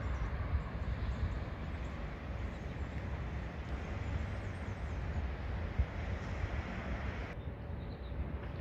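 Wind buffeting the microphone in a low, gusty rumble over a steady hiss of rain-laden outdoor air; the hiss cuts off abruptly near the end.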